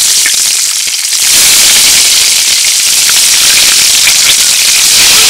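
Boiled eggs frying in hot oil: loud, steady sizzling with dense crackling and spitting, growing louder about a second in.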